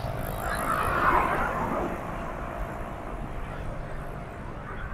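Road traffic on a multi-lane highway: a steady rumble of engines and tyres, with a vehicle passing close by and loudest about a second in.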